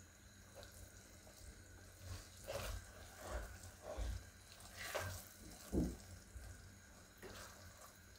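Silicone spatula stirring a wet curry of boiled pigeon peas in a pan: faint, irregular squelches and soft scrapes, starting about two seconds in.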